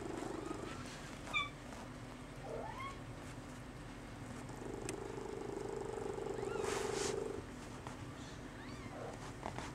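Maine Coon kittens giving a few short, high-pitched mews over a steady purr that swells for a few seconds past the middle, with a brief rustle a little after the middle.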